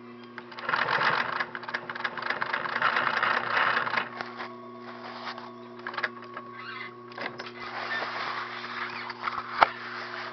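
Needle and thread pulled by hand through heavy fabric for an X stitch, making a rasping drag in strokes of about a second each. A steady low hum runs underneath, and there is one sharp click near the end.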